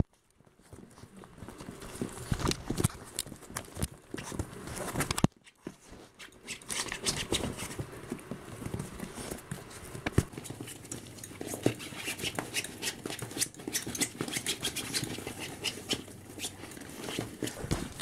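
Puppies' paws and claws tapping and pattering on a hard surface close by, in irregular clicking steps, with two brief drops to near silence, one right at the start and one about five seconds in.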